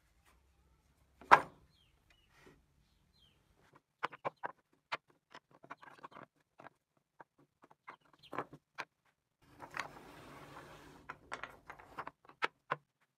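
Carved wooden model-car parts being set down and moved about on a wooden workbench: a loud wooden knock about a second in, then scattered light clacks and taps, and a few seconds of scraping as wood slides on the bench.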